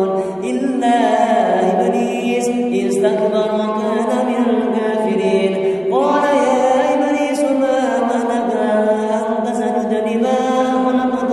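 A man's voice reciting the Qur'an in a melodic tilawah style into a microphone. He sings long held notes that bend up and down, and a new phrase starts with a rising glide about six seconds in.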